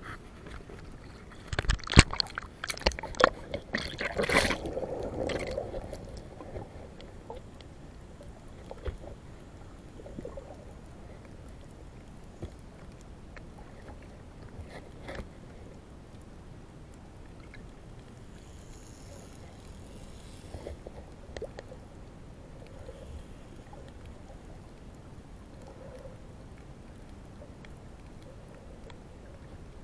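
Water splashing and sloshing against a hand-held action camera as it dips below the sea surface, loudest in the first few seconds. Then a steady muffled underwater hiss with scattered faint clicks.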